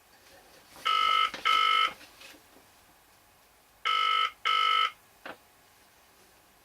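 Telephone ringback tone on a British-style line: two double rings, each a pair of short beeps, about three seconds apart, heard while waiting for the call to be answered. A faint click follows near the end.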